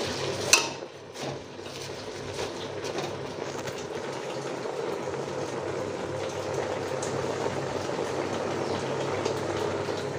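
Gas stove burner running with a steady rush under an aluminium pressure cooker, with a sharp clink about half a second in and light scraping as the taro leaves and lentils are stirred in the pot.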